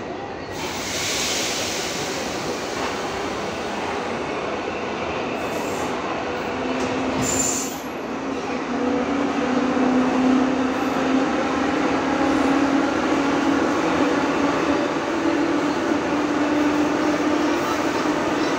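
81-71 metro car running on the track, heard from inside the car. There is a short hiss about a second in; from about a third of the way in, a motor tone rises slowly in pitch and the running noise grows louder as the train gathers speed.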